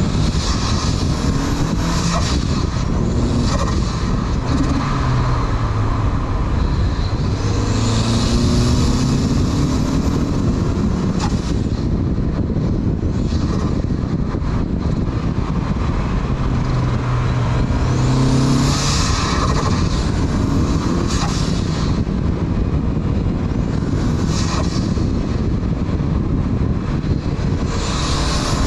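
Turbocharged 1994 Mazda MX-5 Miata's 1.8-litre four-cylinder pulling through the gears and backing off, with its Garrett GT2554R turbo rising to a high whistle as it spools up several times and the blow-off valve venting when the throttle closes. Wind and road noise rush underneath.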